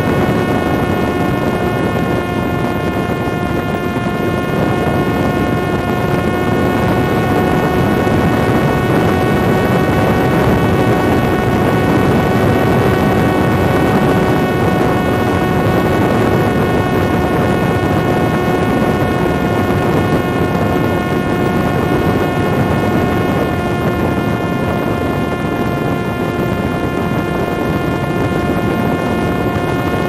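Parrot Disco fixed-wing drone's electric motor and propeller whining at a steady pitch, heard on board in flight over a heavy rush of wind. The pitch sags slightly about three-quarters of the way through and climbs again near the end.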